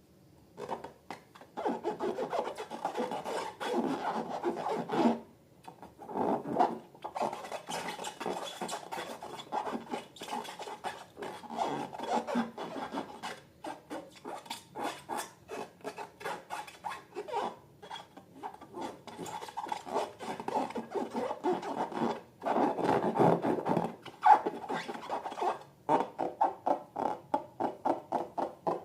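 Slime and balloons being rubbed, squeezed and worked by hand: rapid, irregular rasping and squishing strokes in bursts with brief pauses.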